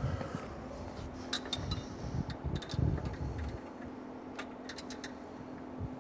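Scattered light metallic clicks and clinks as a brass RPM sensor is turned by hand and wrench into the engine block of a road sweeper, over a faint steady hum.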